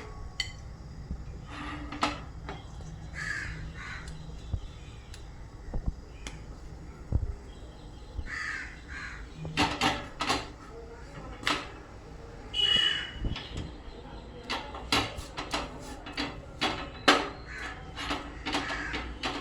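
Crows cawing several times in harsh half-second calls, among short metallic clinks and knocks of utensils on an iron tawa.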